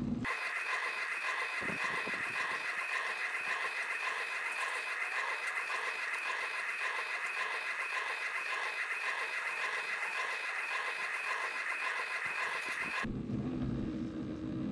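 Diode laser cutter working through a card disc, its fan and stepper motors fast-forwarded eightfold, so the running hum comes out as a high, rapidly fluttering whine. About a second before the end it drops back abruptly to the machine's normal low hum.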